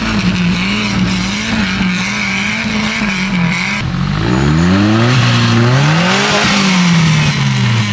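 Trial 4x4's engine revving hard under load, the revs wavering, then climbing steeply about four seconds in and dropping back near the end.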